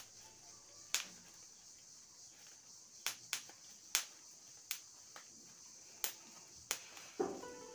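Sharp plastic clicks, about nine at irregular intervals, from a small flexible tripod's phone clamp and ball head as a phone is clamped in and the head is set, over a faint steady high hiss.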